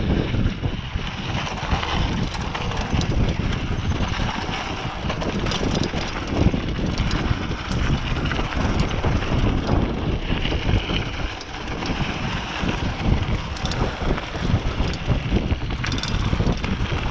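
Mountain bike descending a dry dirt singletrack: tyres rumbling over the loose surface with frequent short clicks and rattles from the bike, and wind buffeting the microphone.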